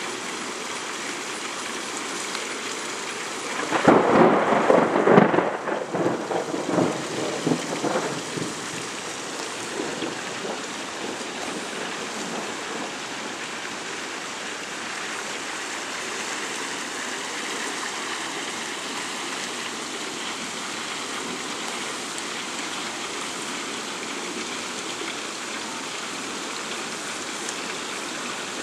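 A thunder peal crackles out about four seconds in and rolls away over the next several seconds, over the steady rushing hiss of the storm.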